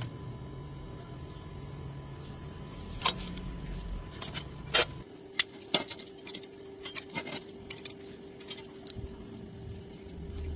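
Sharp metallic clinks and taps of steel being handled, several in quick succession about halfway through, over a low steady hum.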